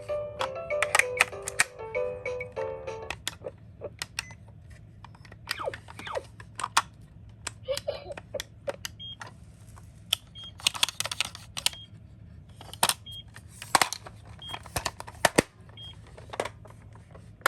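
Background music for the first three seconds, then die-cast toy cars clicking and clattering irregularly as they are handled in a cardboard box. A few faint short high beeps come in between.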